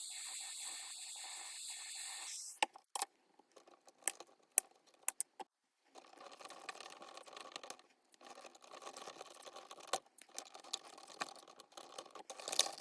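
A steady hiss stops with a falling tail about two seconds in. Then come scattered sharp clicks and stretches of rustling and scraping, as of hands working wires and small tools.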